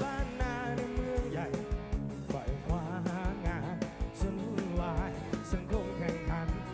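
Live band music through a large PA: a steady drum beat under guitars, with a sung melody line.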